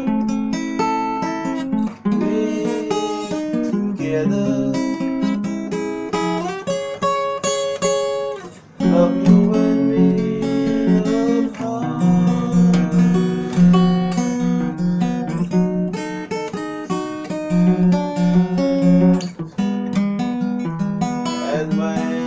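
Acoustic guitar music, chords strummed and held, in the key of F. The sound dips briefly about 2 seconds and 8.5 seconds in.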